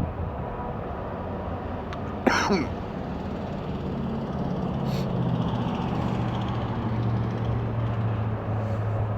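A steady low vehicle engine hum that builds from about three and a half seconds in. About two seconds in there is one sudden, short, loud sound whose pitch falls quickly.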